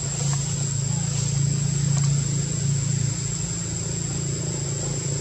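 A motor running steadily with a low, even hum, and a thin steady high whine above it.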